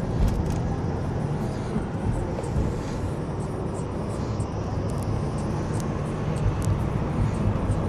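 Steady engine and road rumble inside a moving vehicle, with a few brief light clicks.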